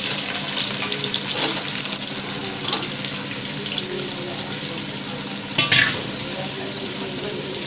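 Sliced onions sizzling in hot oil in a large metal pot, stirred with a metal spatula that scrapes the pot, with one louder metal clink about five and a half seconds in.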